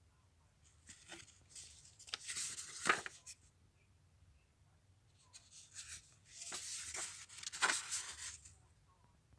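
Pages of a children's storybook being turned by hand, twice: each turn is a paper rustle that ends in a sharp snap as the page flips over.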